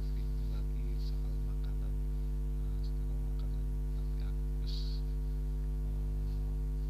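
Steady electrical mains hum on the recording: a low buzz with a ladder of overtones, constant throughout, with faint speech underneath.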